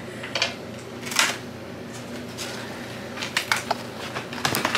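Scattered short rustles and clicks as plastic toy packaging and a plastic doll with its parts are handled.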